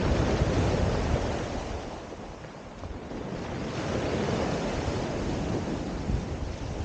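Sea surf breaking and washing up a pebble shore, the wash easing about two seconds in and building again with the next wave. Wind buffets the microphone underneath.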